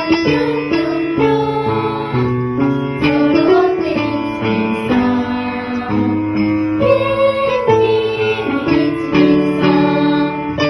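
Japanese children's exercise song: a voice singing the lyrics "ushiro ni pyon pyon pyon" (hop, hop, hop backwards) and "sorotte ichi, ni, san" (all together, one, two, three) over instrumental backing.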